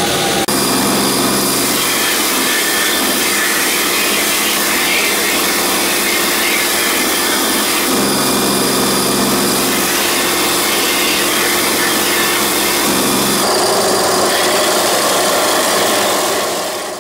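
Bench belt sander running steadily while a short piece of aluminium tube is held against the belt and sanded. The first half-second is the bandsaw, which cuts off abruptly.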